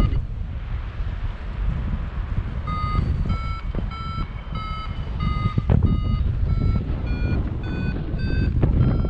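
Short electronic beeps repeating about twice a second, starting about three seconds in, their pitch wavering and creeping slightly higher near the end. They sound over a loud low rumble of wind buffeting the microphone.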